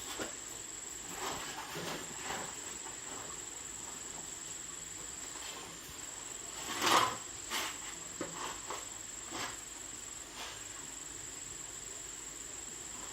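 A steady high-pitched whine over a low hiss, with scattered light clicks and knocks; the loudest knock comes about seven seconds in.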